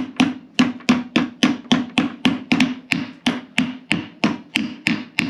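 Hammer tapping a tool around the rubber motor mount ring to seat it onto the end of a Bell & Gossett Series 100 pump motor. The blows come steadily at about four a second, each with a brief ringing note.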